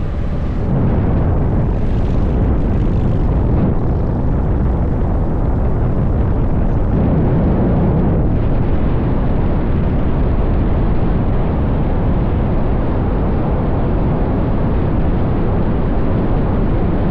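Wind noise on the microphone over a Kawasaki Voyager 1700's V-twin engine running while the motorcycle is ridden at speed. It makes a steady, dense noise, heaviest in the low range, and gets slightly louder about a second in.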